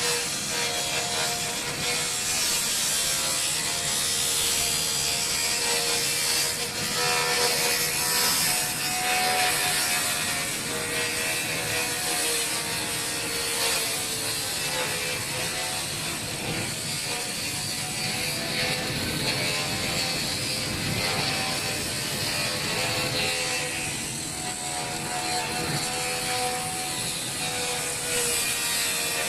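A slag-cleaning machine scraping and grinding hardened cutting slag off the support slats of a CNC laser cutter's table. Its motor runs with a wavering tone over a continuous rough scraping.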